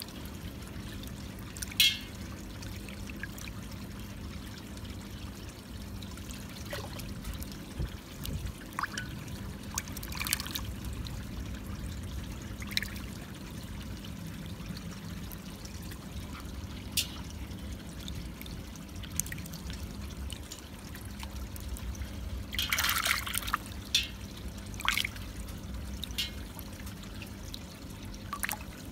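Water in a basin sloshing, trickling and splashing as a hand scoops and lifts ranchu goldfish, with short scattered splashes and a busier cluster about two-thirds of the way through. A steady low hum runs underneath.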